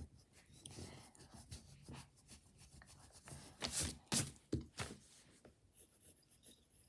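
Pencil drawing lines on a sheet of paper in short strokes, with the paper rustling as it is moved near the start; the loudest strokes come about four seconds in.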